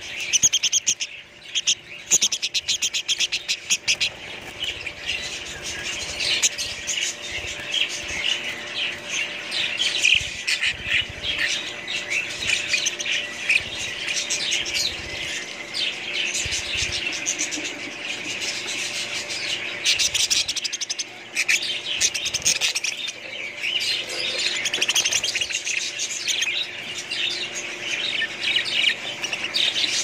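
A flock of caged budgerigars chattering, a dense unbroken run of rapid chirps, warbles and squawks from many birds at once.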